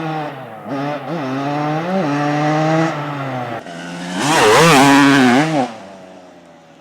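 Two-stroke single-cylinder engine of a 1999 Kawasaki KX250 dirt bike, through its Pro Circuit expansion-chamber pipe, revving in a few throttle blips. The longest and loudest rev comes near the end, its pitch wavering, before dropping back.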